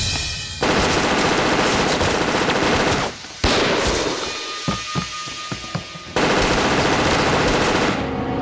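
Rapid automatic gunfire from a submachine gun in a dramatized indoor gunfight: a long burst that breaks off about three seconds in, separate single shots around five seconds, then another long burst from about six seconds.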